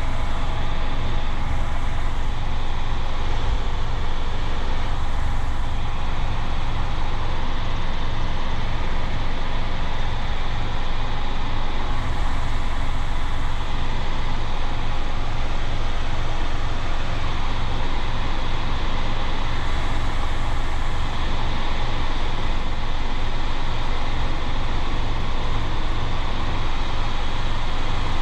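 Steady cabin noise of a Robinson R22 helicopter in cruise flight: its four-cylinder piston engine and two-blade rotor make a loud, unchanging low drone with a fast pulsing beat.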